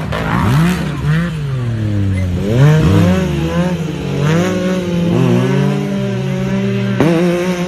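Off-road vehicle engine revving up and down repeatedly, its pitch rising and falling, with a sharp knock about seven seconds in.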